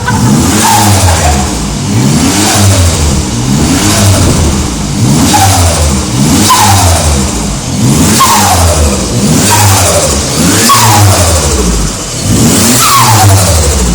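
Turbocharged Perodua Viva 1.0 three-cylinder engine with a straight-piped exhaust, blipped repeatedly, about once every second or two. Each rev is followed by a falling whine: the turbo spooling down with flutter as the throttle snaps shut.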